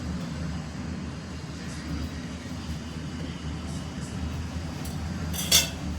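Steady low background rumble, with one short sharp knock near the end.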